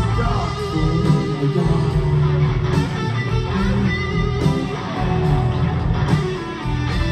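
Live rock band playing an instrumental passage with no vocals, guitar to the fore over bass and drums.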